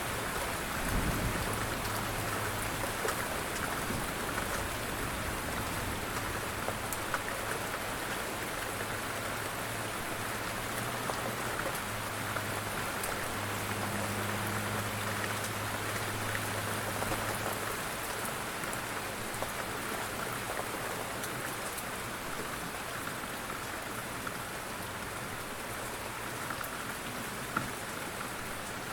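Steady rain falling on surfaces, an even hiss with scattered sharp drop ticks. There is a brief low thump about a second in.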